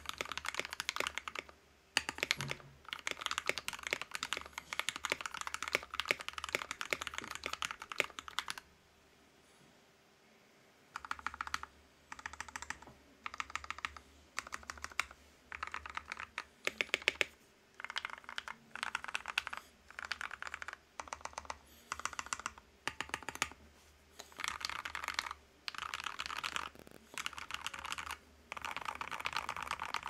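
Typing on a custom 60% mechanical keyboard: lubed Gateron Hippo switches on a brass plate in a resin case, with PBT keycaps. Fast continuous typing for about eight seconds, a pause of about two seconds, then short bursts of keystrokes about a second long with brief gaps between them.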